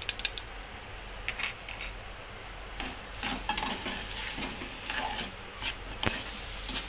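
A metal spoon scraping and clinking against a steel saucepan as minced mutton is stirred over a gas flame, with soft sizzling underneath. The scrapes come thickest in the middle, and one sharper clink near the end is the loudest.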